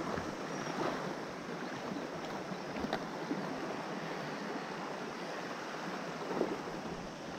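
Sea water lapping and washing against shore rocks in a steady, even wash.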